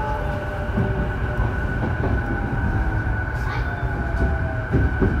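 Interior running sound of a Sotetsu 12000 series electric train's motor car: a steady rumble of wheels on rail with occasional light knocks, a steady high tone, and a motor whine falling slowly in pitch as the train slows.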